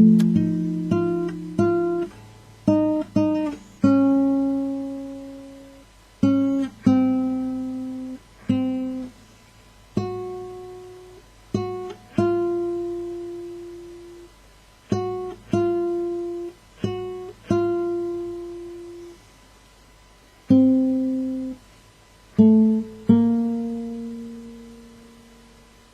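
Acoustic guitar played solo as the closing bars of a song: single plucked notes and chords in unhurried phrases, each left to ring and die away. It ends on a last chord, about 23 seconds in, that fades out.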